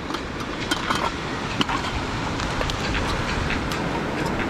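A wood campfire burning, with scattered sharp crackles and clicks over a steady low rumble of background noise.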